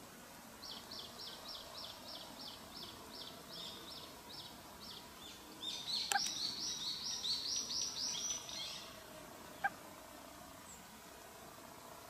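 Thrush nestlings begging with a rapid series of high, thin chirps, about three or four a second, that grow louder and denser about halfway through. A single sharp click comes near the end.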